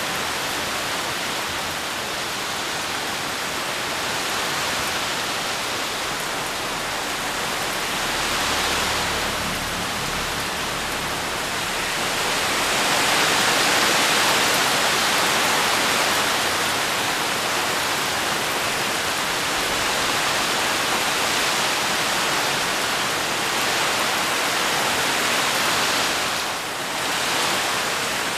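Rain pouring down on palm fronds and leaves: a steady, dense hiss that swells louder for a few seconds about halfway through.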